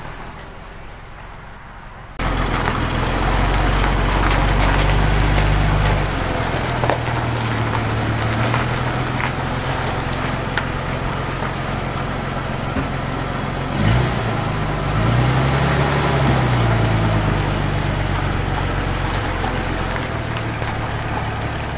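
1947 Dodge WC half-ton pickup's flathead six running as the truck rolls slowly over a gravel drive, tyres crunching on the stones. The sound comes in suddenly about two seconds in, and the engine speed rises and falls briefly about two-thirds of the way through.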